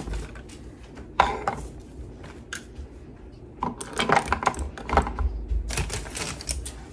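Light clicks and clatter of makeup items, lipstick tubes and brushes, being handled and set into the compartments of a vanity's desktop organizer, in a few short scattered clusters.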